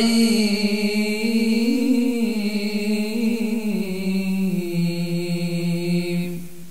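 A man's solo Quran recitation (tilawat) into a microphone: one long drawn-out melodic note with wavering ornaments, stepping down in pitch and breaking off near the end.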